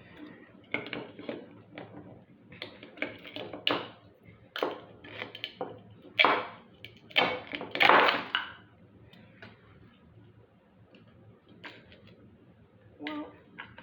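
Ice being chipped and broken away by hand from a plastic toy figure: a run of irregular sharp knocks and crunches, loudest about six to eight seconds in, thinning to a few scattered clicks.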